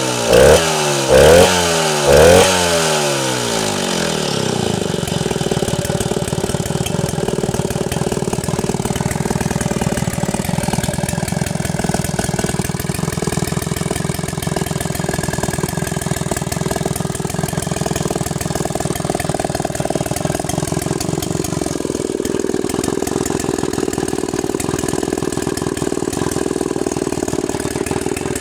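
Stihl 090G two-stroke chainsaw engine blipped three times in the first few seconds, the revs falling back after each, then idling steadily.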